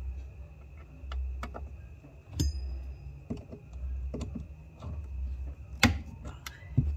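Scattered clicks and knocks of heavy battery cables and terminal clamps being handled and pulled from car batteries, the loudest knock about six seconds in.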